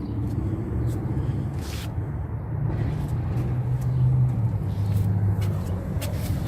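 Steady low rumble of a motor vehicle, its low drone shifting slightly in pitch, with a few short clicks.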